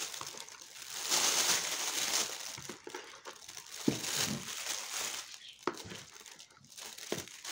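Clear plastic roasting bag crinkling and rustling as peeled potatoes are packed into it, loudest about a second in. Three light knocks follow in the second half.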